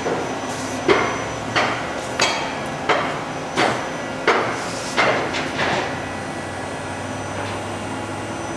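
Daewoo Puma 200 CNC turning centre making a regular series of sharp mechanical clunks, about eight of them at a bit under two a second, then only a steady machine hum for the last couple of seconds.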